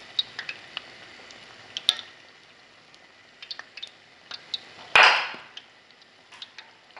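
Puff puff dough balls deep-frying in a pot of hot oil: a steady sizzle with scattered crackles and pops. About five seconds in comes one short, louder burst of noise.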